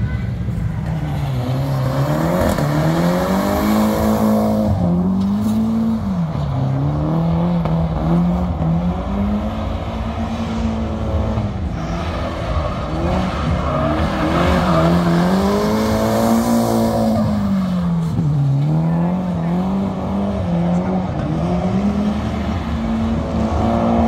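Drift car's engine revving up and down over and over, its note rising and falling every two to three seconds as the car is held in a slide, with tyres squealing.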